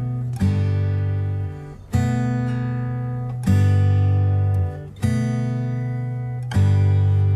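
Background music: an acoustic guitar strumming slow chords, about one every second and a half, each left to ring and fade.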